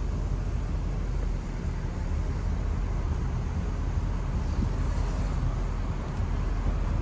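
Steady low road rumble of a car driving along, tyre and engine noise without breaks.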